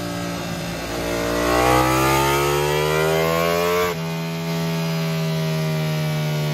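Ducati Panigale V4R's 999cc 90-degree V4 running through a full titanium Akrapovic exhaust on a chassis dyno: a steady note, then revs climbing and getting louder for about three seconds from about a second in. It breaks off abruptly just before four seconds and goes back to a steady running note.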